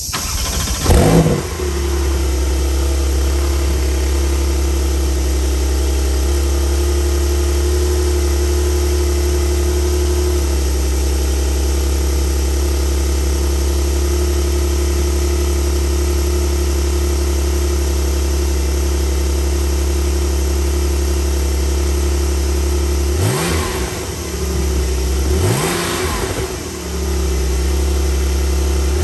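Porsche 911 Turbo flat-six engine starting about a second in with a brief loud flare, then settling into a steady idle that steps slightly lower about ten seconds in. Near the end two quick blips of the throttle rev it up and let it fall back to idle.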